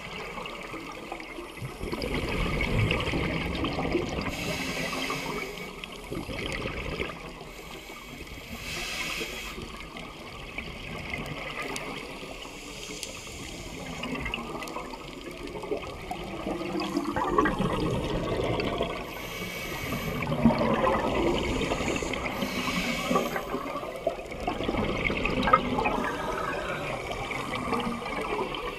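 Scuba divers breathing through their regulators underwater: exhaled bubbles gurgle and rush out in a swell every few seconds.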